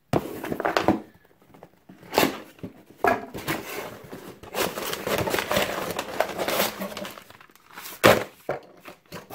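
Cardboard subscription box being opened by hand: flaps pulled open and paper and packaging inside rustled and crinkled, with a sharp knock about eight seconds in.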